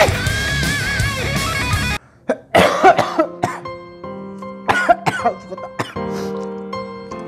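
Rock guitar music cuts off about two seconds in. A man then coughs hard several times, choking on the spicy fire noodles he is eating fast, over soft music with held notes.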